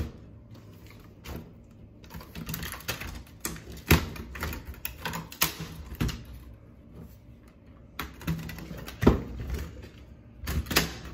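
Plastic laptop case parts clicking, tapping and knocking irregularly as they are handled and shifted, with a few louder knocks.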